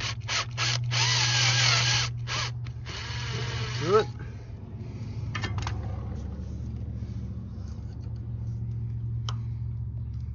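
Power drill with a tiny bit, run in bursts to drill a hole into the axle oil seal of a Sears garden tractor's transaxle. The longest burst runs through the first two seconds, another about three seconds in ends in a short rising whine, and a few brief bursts follow. A steady low hum sits underneath.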